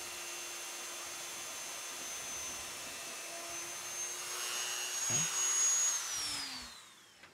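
Dremel rotary tool with a small drill bit running steadily with a high whine, drilling into a plastic boss. The sound grows louder and rougher about four seconds in as the bit cuts the plastic, then the motor is switched off and its whine falls in pitch as it spins down near the end.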